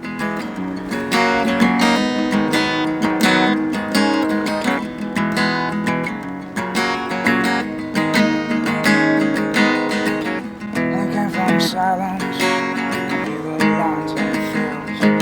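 Acoustic guitar strumming chords at a steady pace as the intro of a song.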